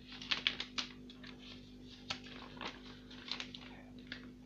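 Paper pages of a handmade notebook being turned and handled: short rustles and crackles, a cluster of them near the start and a few more later on. A faint steady low hum runs underneath.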